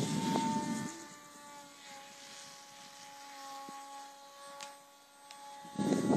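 Electric RC combat model plane's motor and propeller whining faintly overhead, a steady tone whose pitch drifts slightly lower as it flies. A louder low rumble covers it for the first second and again near the end.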